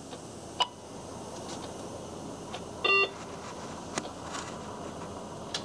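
A single short electronic beep from the bus's dispatch radio unit during the driver's log-in, about three seconds in, with a few sharp clicks around it. A steady low cabin noise runs underneath.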